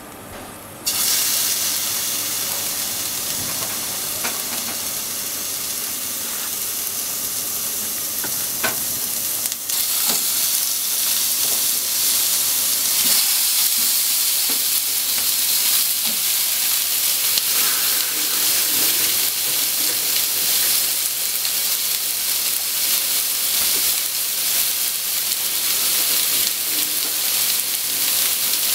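Cubes of pork belly sizzling in a hot non-stick frying pan. The steady frying hiss starts abruptly about a second in, grows slightly louder, and has scattered sharp pops of spattering fat.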